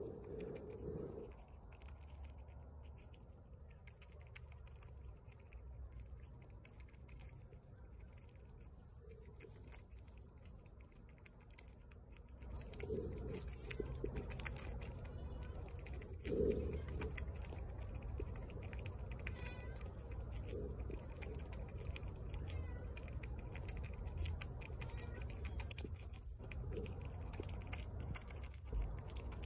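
Eastern gray squirrel chewing a strawberry: quick, faint chewing clicks and smacks over a low steady rumble, a little louder in the second half.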